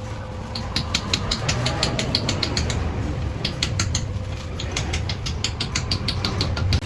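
A machine running with a steady low hum and rapid, uneven clicking, several clicks a second.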